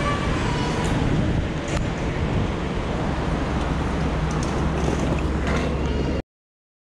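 Rumble and rush of a commuter train heard from inside a crowded carriage, with a steady low hum joining about halfway through. The sound cuts off abruptly near the end.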